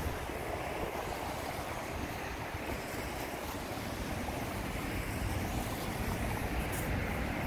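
Outdoor street ambience: a steady rush of passing traffic, with wind buffeting the microphone in a low, gusty rumble.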